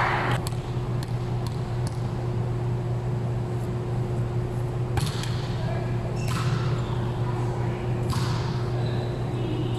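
Volleyball being played: several sharp smacks of hands on the ball, the strongest about five seconds in, echoing over the steady low hum of a large hall.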